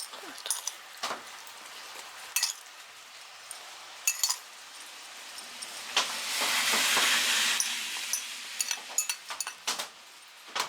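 Scattered light clinks and taps, as of small hard objects knocked together, with a hiss that swells and fades over about two seconds past the middle.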